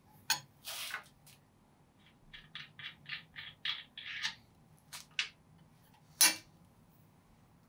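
Small metal clicks and scrapes of nuts and washers being taken off threaded steel studs under a jointer table, with a run of quick clicks about two seconds in and one sharp metallic clack a little after six seconds.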